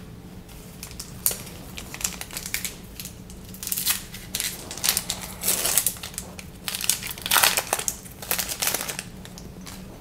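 Crinkling and crackling of a trading-card pack wrapper being opened and crumpled by hand, in irregular bursts over several seconds, loudest shortly before the end.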